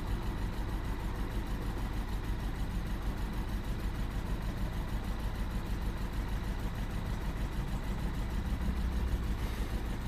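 Lexus IS 220d's 2.2-litre four-cylinder diesel idling roughly and unevenly, running really bad with a misfire.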